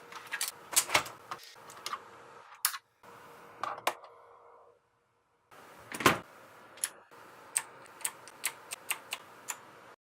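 Keys being pressed on a Rapoo V708 mechanical keyboard: sharp, irregular key clicks, a few a second, in short runs broken by several brief gaps of dead silence.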